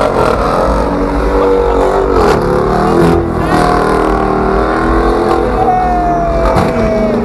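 Car engine revving hard and unevenly, its pitch rising and falling, as the car spins doughnuts with its rear tyres smoking.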